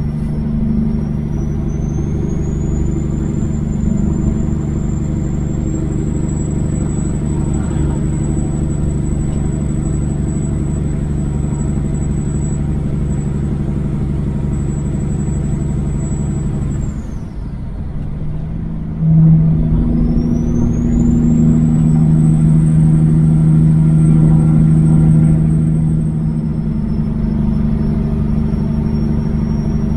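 Kenworth W900 semi truck's diesel engine running at highway speed with steady road noise, heard through the cab, over a thin high whine that glides up and down. The sound drops briefly about seventeen seconds in, then returns louder and deeper.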